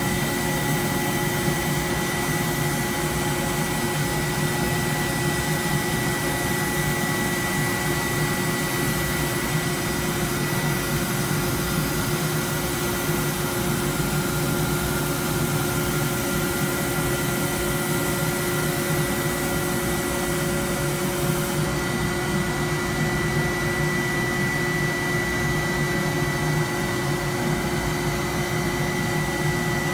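Industrial machine running steadily: an even rush of noise with a constant high whine. The hiss thins slightly about two-thirds of the way through.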